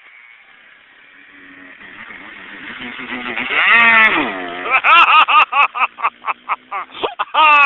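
Honda CR85 two-stroke dirt bike engine growing louder and rising in pitch as it comes up close and passes, then falling. After that comes a quick run of short revs, about four or five a second, as it rides off.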